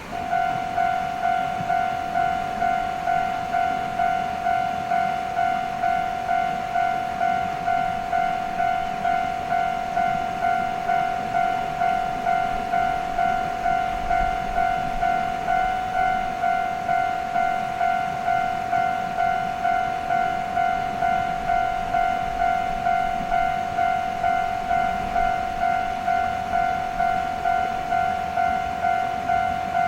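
Japanese railway level-crossing warning bell ringing its repeated "kan-kan" strike, one pitch repeating evenly about three strikes every two seconds.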